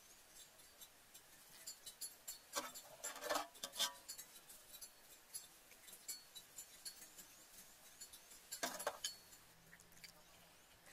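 Spoon clinking and scraping against a bowl while scooping fish pieces and broth: scattered light clicks, with two busier spells of clinks, about two and a half seconds in and near the end.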